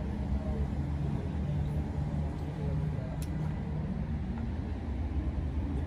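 Steady low rumble of background noise, with faint voices and a single light click about three seconds in.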